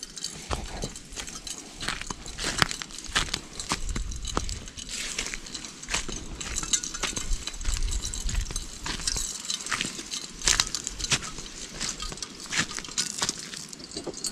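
Footsteps crunching through dry leaf litter and twigs: irregular crackles and snaps with no steady rhythm.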